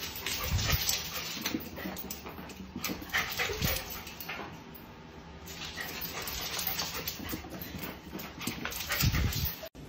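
A husky vocalising as it dashes about, with scattered clicks and a few dull knocks.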